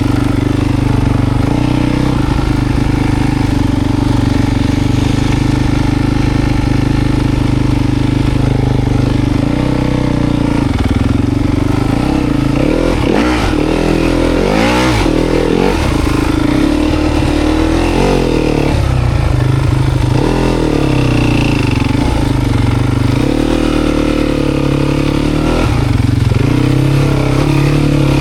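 Dirt bike engine running steadily, then revving up and down several times in quick succession about a third of the way in, with another rise in revs near the end.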